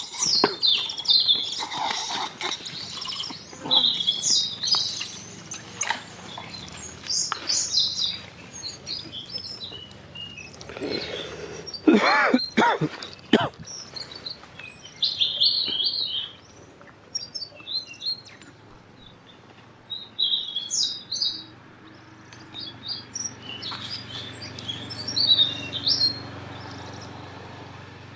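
Many birds chirping and calling in short high bursts, with a few louder, harsher calls about eleven to thirteen seconds in.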